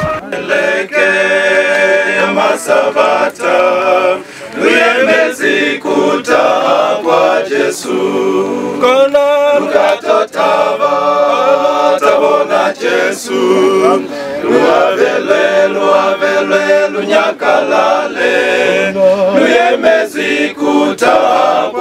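Male choir singing a cappella, several voices together in harmony, with no instruments.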